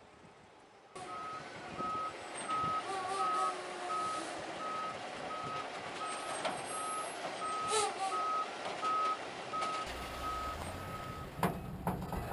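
Heavy truck's reversing alarm beeping about twice a second, starting about a second in, over the truck's diesel engine running at low speed.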